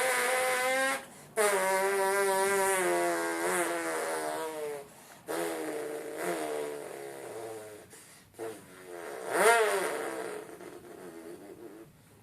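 A person imitating a 2005 Ford GT's engine with his voice: a long buzzing hum whose pitch slowly sinks, broken by three short pauses for breath. Near the end comes a quick upward and downward sweep like a rev, and then the sound fades away.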